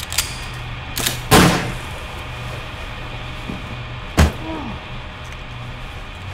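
Sharp impact hits, likely sound-designed fight or gunshot effects, over a low, steady drone of film score. Two hits come close together about a second in, the second the loudest with a short tail. A third follows around four seconds in, trailed by a short falling tone.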